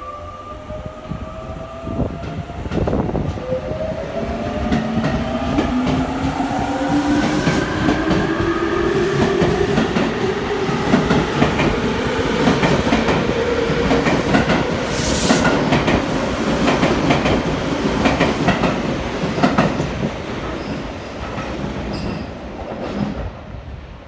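Tokyo Metro Yurakucho Line electric train departing: its traction motors give several whining tones that rise in pitch as it picks up speed, while the wheels clack over the rail joints. The sound fades in the last couple of seconds as the train draws away into the tunnel.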